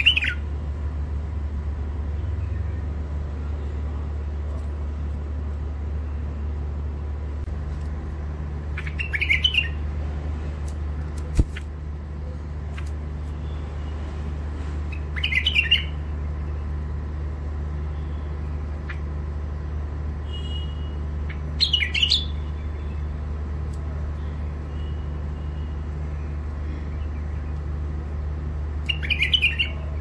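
White-eared bulbul giving short, sharp bursts of a few call notes about every six to seven seconds, over a steady low hum. A single sharp click comes about eleven seconds in.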